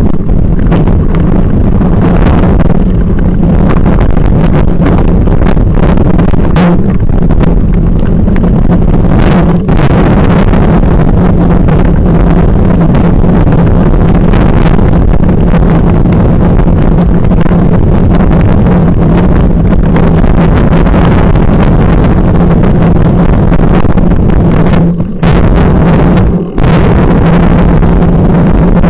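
Steady wind buffeting and rumble on a bike-mounted action camera's microphone, with rattles and knocks from a carbon 29er mountain bike riding over a rough gravel trail. The noise briefly drops twice near the end.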